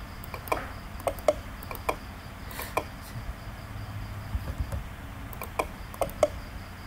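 Computer mouse buttons clicking: several short, sharp clicks at uneven intervals, some in quick pairs.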